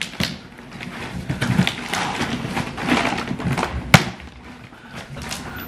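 Cardboard shipping box being torn open by hand: the cardboard flaps rustle and scrape, with a string of small clicks and one sharp crack about four seconds in, the loudest sound.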